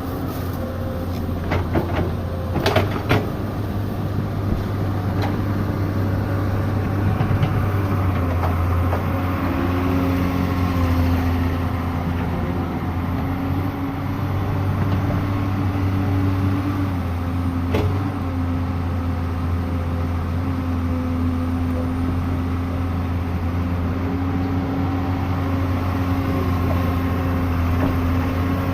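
Excavator's diesel engine running steadily, its pitch briefly shifting about ten seconds in. A few sharp knocks come in the first three seconds and another about eighteen seconds in.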